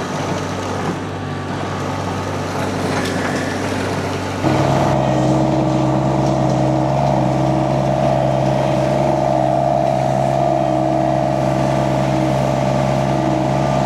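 Mini skid steer engine running steadily. About four and a half seconds in, the revs jump up as the throttle is opened, and the engine holds at the higher speed.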